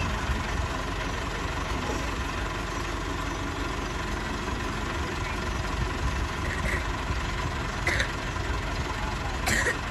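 Massey Ferguson MF 385 tractor's diesel engine running steadily, with a few brief sharp noises near the end.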